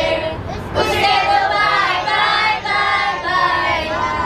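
A group of girls and women singing together, several voices in unison with long held notes.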